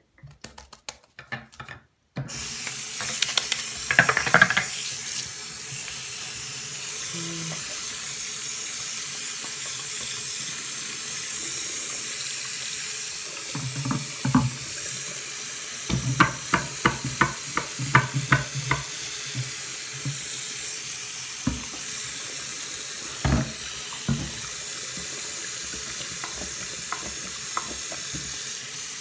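Water running from a tap into a sink: a steady rush that starts suddenly about two seconds in, with scattered knocks and a quick run of knocks a little past the middle.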